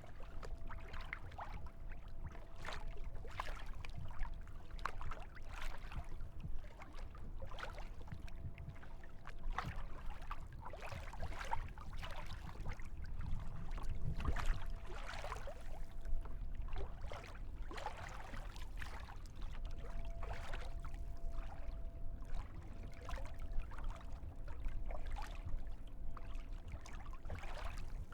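Kayak paddling on open water: irregular splashes of the paddle blades and water lapping against the hull over a steady low rumble. A faint thin hum comes and goes.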